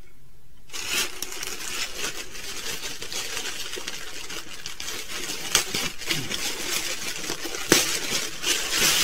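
Plastic mailer bag crinkling and rustling as it is handled and opened, starting about a second in, with sharper crackles about five and a half and nearly eight seconds in.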